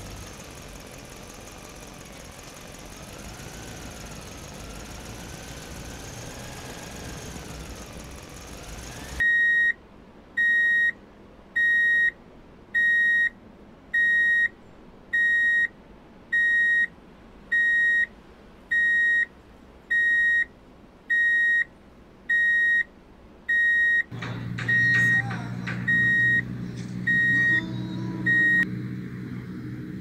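An electronic beeper on a remote-control toy construction vehicle sounds a single high beep about once a second, after a stretch of faint background noise. In the last few seconds a low hum from the toy's electric motor joins in, with a few clicks, and the beeping stops just before the end.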